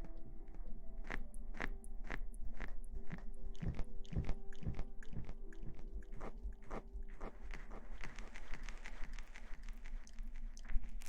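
Close-miked ASMR crackling and rustling: irregular sharp crackles and taps, denser and busier near the end.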